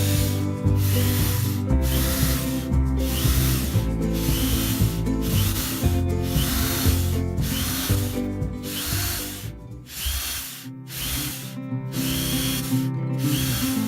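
A hand tool rubbing on wood in regular back-and-forth strokes, about one a second, over acoustic guitar music.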